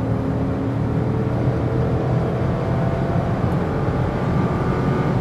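Chrysler 300S's 5.7-litre Hemi V8 at full throttle in a wide-open acceleration run, the engine note steady and its pitch slowly rising as the car gathers speed, heard from inside the cabin.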